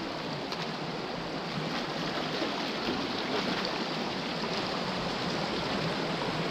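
Shallow stream running steadily over a stony bed, with splashing as feet wade through the water.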